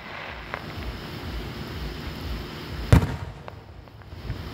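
Fireworks display heard from a distance: a faint pop about half a second in, then one loud aerial shell burst about three seconds in, followed by a smaller pop.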